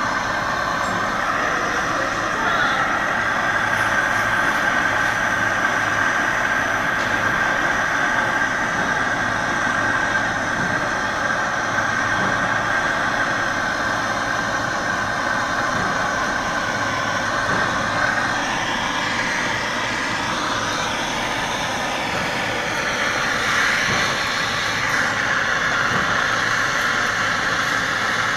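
Handheld gas torch burning with a steady hiss, its flame played on a freshly thrown clay vase to firm up the wet clay.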